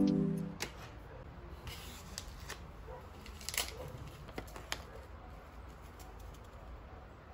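Background music fades out, then a tea bag wrapper is handled and torn open with scattered crisp crinkles and rustles, the loudest about three and a half seconds in.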